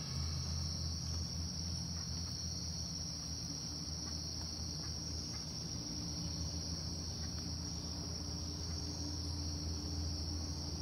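A steady, high-pitched chorus of insects in tropical forest, with a low steady hum underneath.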